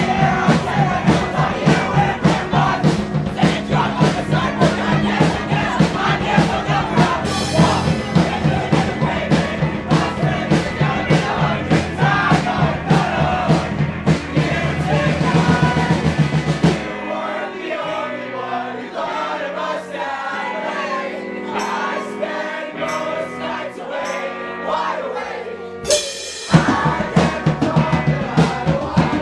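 Live rock band playing loud, with a drum kit, bass, electric guitars and singing. About two-thirds of the way through, the drums and bass drop out, leaving a thinner guitar-led passage. Near the end the full band comes crashing back in.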